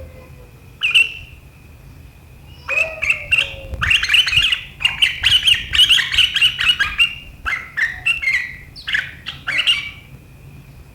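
Sooty-headed bulbul (kutilang) singing hard in the rapid, sharp chattering style Indonesian keepers call riwikan: one call about a second in, then a fast run of sharp notes from about three seconds to ten.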